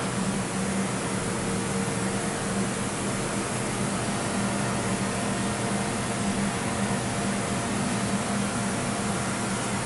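Steady fan-like hiss with a constant low hum, unchanging throughout.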